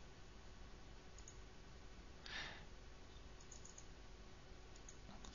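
Near silence: room tone with a few faint computer-mouse clicks as the running program's number spinner and buttons are clicked, and one short soft breath-like noise about two seconds in.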